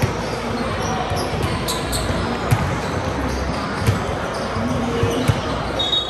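Basketball bouncing on a gym floor, a few thumps about a second and a half apart, over the steady hubbub of voices in a gym.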